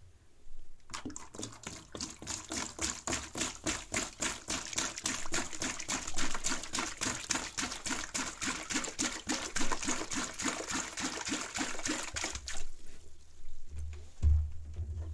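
Water pouring and splashing into a plastic tub, pulsing several times a second. It stops about twelve seconds in, and a low thump follows near the end.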